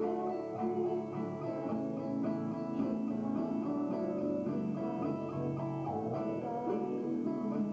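Live guitar music: a guitar played with quick plucked notes, one note after another without a break.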